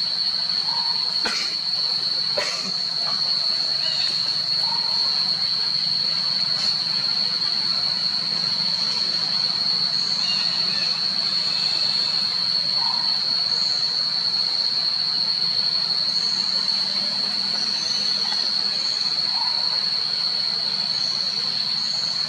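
A steady high-pitched drone of forest insects, with two sharp clicks in the first few seconds and a few scattered short chirps.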